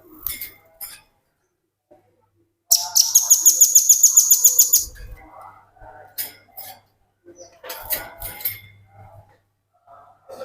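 Velvet-fronted nuthatch singing a fast, high rattling trill of about nine notes a second for about two seconds. Shorter bursts of sharp calls come before and after it. This is the rapid 'ngebren' song.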